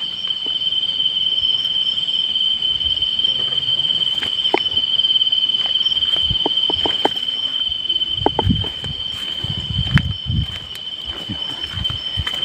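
A night insect calling with one unbroken, steady high-pitched trill. Scattered clicks and a few low thumps come in about eight to ten seconds in.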